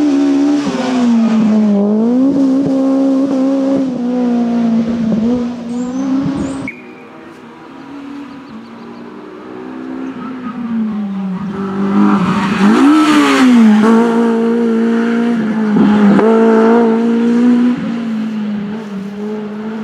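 Honda Civic Type R rally car's engine driven hard at high revs, its pitch dipping and climbing again and again with gear changes and lifts off the throttle. After a sudden drop in level partway through, the engine note comes back faint and grows louder as the car approaches, at its loudest for several seconds, then fades.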